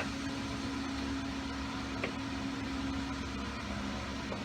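A steady low machine hum, with one sharp click at the start and a faint tap about two seconds in.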